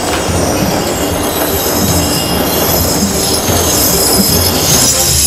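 Iron chains dragged by several walkers along a paved stone street, a continuous metallic scraping and clanking.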